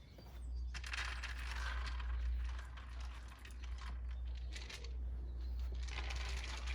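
Crinkling, rustling handling noise in two stretches, the second starting about two-thirds of the way in, over a steady low rumble.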